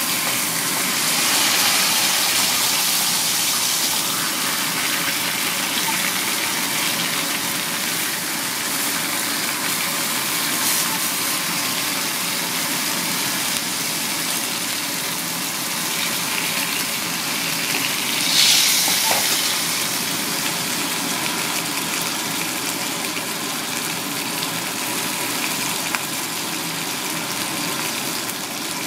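Spotted knifejaw heads and fillets frying in garlic butter in a hot pan: a steady sizzle that swells briefly louder about two-thirds of the way in.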